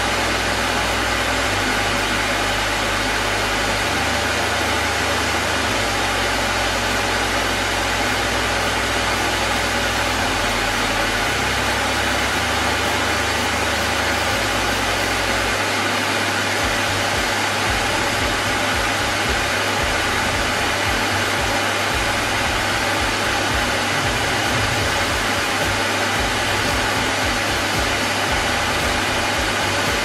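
Numatic Henry tub vacuum cleaner running steadily: an even, unchanging rush of motor and suction noise.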